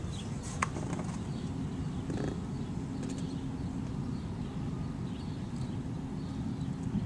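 Low, steady outdoor background rumble during a thunderstorm, with a faint hum and a single short click about half a second in.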